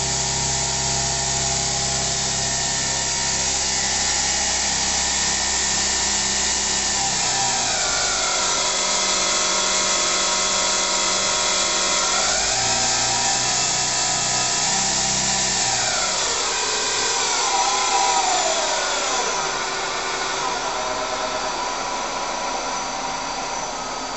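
Daewoo Puma 6G CNC lathe's spindle running empty with a steady whine that changes pitch as the spindle speed is dialed: it drops about a third of the way in, rises again, then drops twice more and settles at a low speed.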